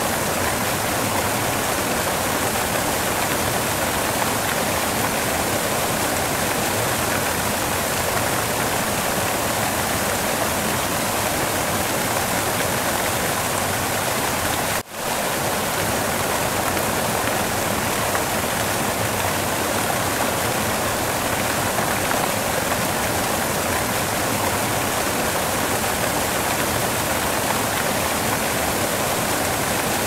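Waterfall rushing in a steady, dense roar of falling water that dips out for an instant about halfway through.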